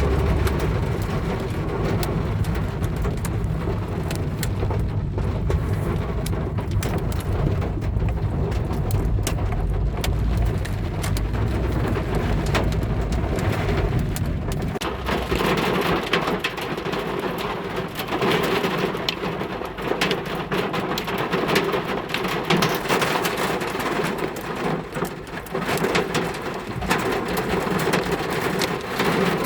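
Heavy rain pelting a car's body and glass, a dense steady patter dotted with many sharp individual hits. A deep low rumble underneath stops abruptly about halfway through.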